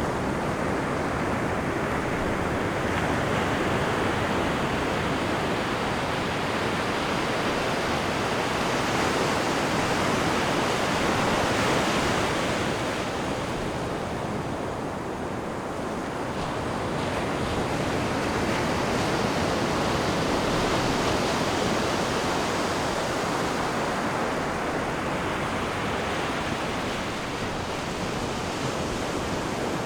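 Ocean waves breaking and washing on a beach, a continuous surf rush that swells and eases slowly, loudest about twelve seconds in.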